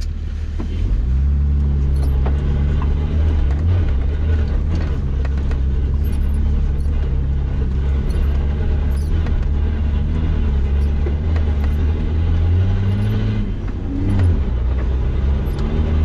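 Nissan Patrol Y60 4x4's engine running steadily under load on an off-road trail. Its pitch steps up about a second in and shifts again near the end, with scattered light knocks.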